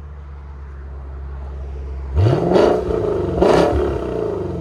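Lexus RC F's 5.0 L V8 exhaust with Valvetronic Designs mufflers, valves open: steady idle, then two quick throttle blips about two seconds in and a second apart, each rising sharply in pitch and dropping back to idle.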